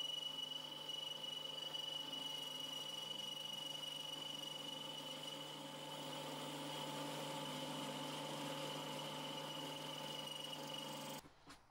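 Metal lathe running at reduced spindle speed while a carbide boring bar cuts the bore of a hard alloy roller blank: a steady low hum with a thin high whine over it, cutting off suddenly near the end.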